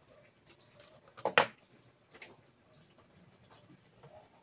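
A cylindrical battery cell set down on a wooden workbench: one short knock about a second and a half in, with faint handling sounds around it.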